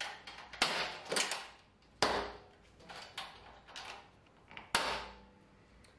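Metal toggle latches on the lid of a Record Power CamVac dust-extractor drum being snapped shut: a few sharp clicks a second or more apart, the loudest about half a second in, with others about two seconds in and near the end.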